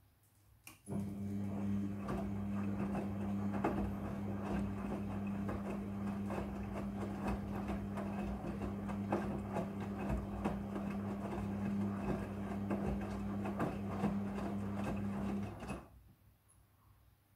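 Midea front-loading washing machine running a burst of about fifteen seconds: a steady motor hum with many irregular clicks and knocks over it, as the drum tumbles the load. It starts abruptly about a second in and stops abruptly near the end.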